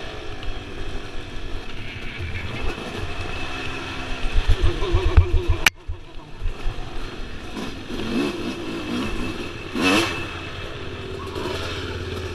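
Yamaha dirt bike engine heard on board while riding a dirt trail, revving and easing off with the throttle, strongest a little past a third of the way in. A sharp click a little before halfway is followed by a sudden drop in level, after which the engine runs lower and steadier, with one brief louder rev near the end.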